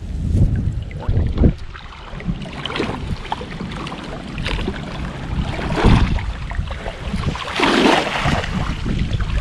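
Water splashing and streaming as a cast net is hauled dripping out of shallow river water and a person wades through it, with wind rumbling on the microphone; a bigger splash near the end as the net is swung out for the next throw.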